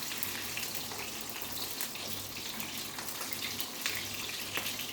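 Eggplant slices frying in hot oil in a pan: a steady sizzle with scattered crackles and pops.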